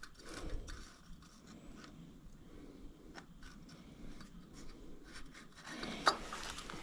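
Faint scraping, rubbing and small clicks of hands and a small tool working at a lawn tractor's carburetor float bowl, prying at the piece that holds the float. A short cluster of louder clicks comes near the end.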